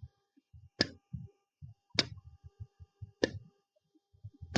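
A woman repeatedly saying the isolated phonics sound of the letter T, a crisp, breathy "t" made by releasing the tongue from behind the upper teeth. Four short "t" bursts come about a second and a quarter apart.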